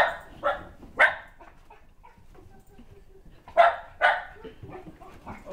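Shetland sheepdog barking excitedly in greeting: three quick barks, a pause of about two seconds, then two more.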